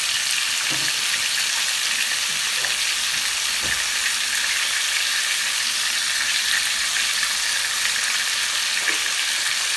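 Chicken pieces sizzling steadily in a little hot oil in a wok, an even high hiss of searing meat.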